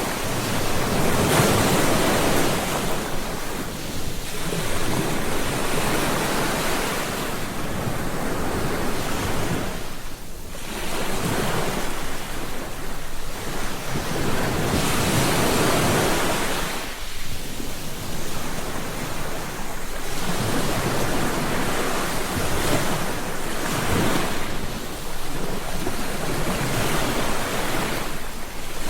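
Ocean waves breaking and washing onto a beach, a steady rush of surf that swells and eases every few seconds.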